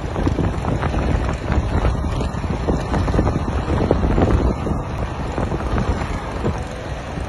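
Wind buffeting the microphone: a loud, steady rumble with irregular gusty thumps.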